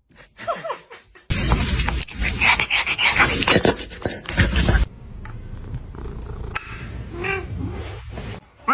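A cat's voice: a short meow at the start, then several seconds of loud rough noise, and another short call near the end.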